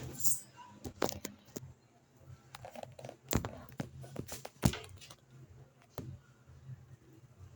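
Electrolux LED14 top-loading washing machine running with a low steady hum, broken by a series of sharp irregular cracks and knocks, the loudest two about three and a half and four and a half seconds in.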